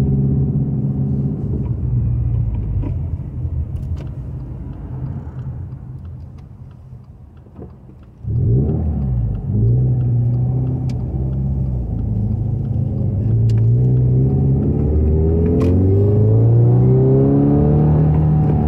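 2020 Subaru Crosstrek's 2.0-litre flat-four, fitted with a Nameless Executive axleback muffler and heard from inside the cabin. The exhaust note fades as it eases off, comes back suddenly on load about eight seconds in, and then climbs steadily in pitch under acceleration.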